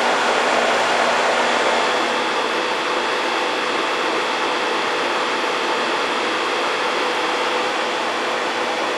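Air-conditioning condenser units running: a steady fan rush with a faint hum in it, a little louder for the first two seconds.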